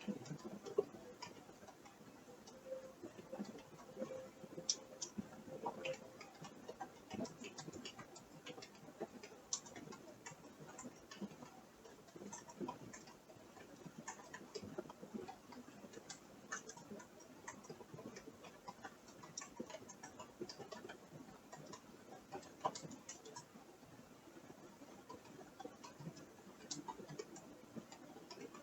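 Faint, irregular creaks and ticks, several a second with no steady rhythm, the repeated creaking heard from the room above.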